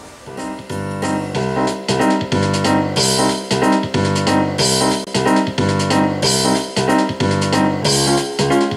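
Instrumental background music led by a keyboard, starting at once with steady rhythmic chords and a bright splash of cymbal-like hiss recurring about every second and a half.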